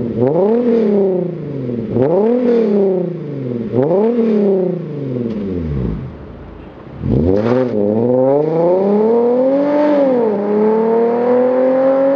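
Hyundai Genesis Coupe's 3.8-litre V6 through an ARK cat-back exhaust with headers, downpipe and catless test pipe. It is revved in three quick blips about two seconds apart, then pulls away under hard acceleration with a steadily rising note that dips briefly at an upshift about ten seconds in.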